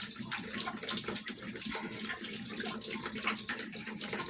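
Water from a leak upstairs pouring and dripping steadily through a bathroom ceiling, many drops splashing down at once in a rain-like patter.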